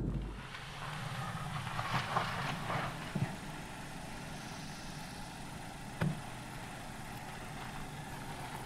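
Car engine idling steadily after the car has pulled up, with a short thump about six seconds in.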